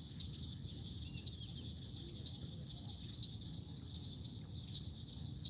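Steady chorus of night insects, a continuous high trill, over a low even rumble.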